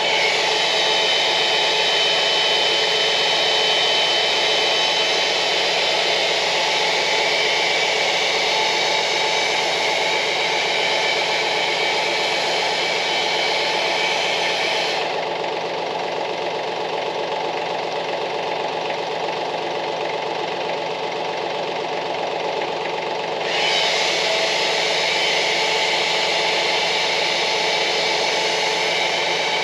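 Compact tractor's diesel engine idling steadily.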